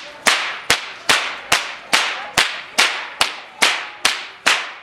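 A whip cracked over and over in a steady rhythm, about two and a half sharp cracks a second, each with a short echo. The cracking stops shortly before the end.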